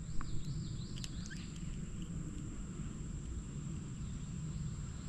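Insects droning in one steady high-pitched whine, with a bird chirping a few wavering notes in the first second and a half. A low rumble runs underneath, and there are a few faint clicks.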